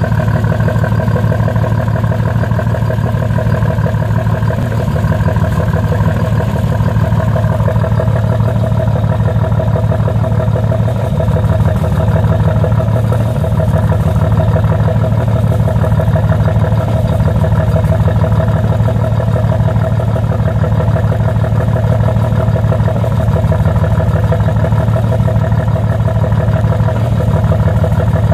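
2005 Dodge Ram's 5.9 Cummins inline-six turbodiesel running steadily at idle with an even, rapid clatter. The engine has three cracks in the cylinder head, two bad cylinders and six failed injectors.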